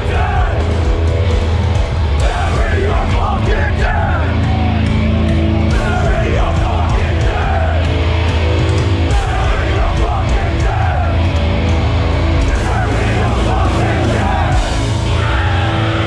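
Hardcore band playing live at full volume: heavy distorted guitars, bass and drums under shouted vocals, heard from right in the crowd at the front of the stage.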